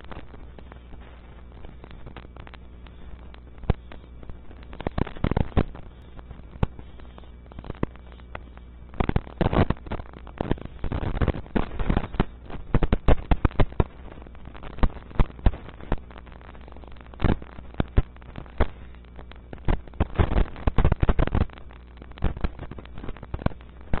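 Barn owlets scuffling in a wooden nest cavity: flurries of sharp scratches, knocks and bumps from talons and bodies against the wood, heaviest in the middle and near the end, over a steady low hum.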